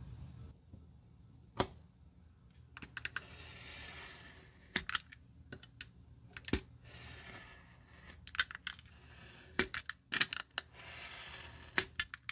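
Snap-off utility knife slicing through a textured black sheet of sole material along a steel ruler: three drawn-out scraping strokes of about a second each, between sharp clicks and taps from the blade and ruler.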